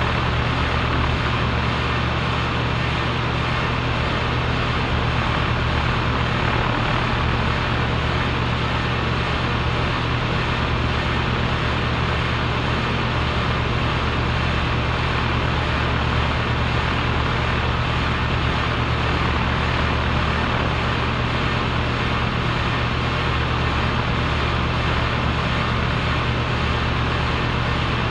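A compressor running continuously: a steady low motor hum under an even rushing noise, with no change in pitch or level.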